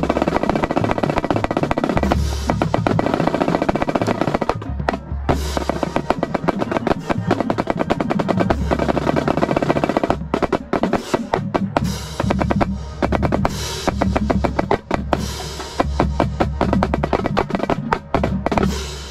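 Marching snare drum played close up, with fast sticking and rolls, alongside the rest of the drumline.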